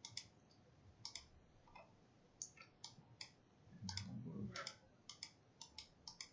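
Computer mouse buttons clicking, faint and sharp, about a dozen single and double clicks at an irregular pace. A brief low sound comes about four seconds in.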